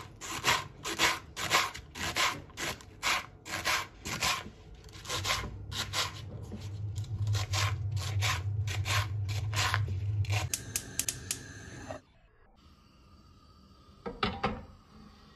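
Kitchen knife slicing through leeks onto a bamboo cutting board, about two crisp cuts a second. A steady low hum joins midway, and the cutting stops near the end, leaving a couple of softer knocks.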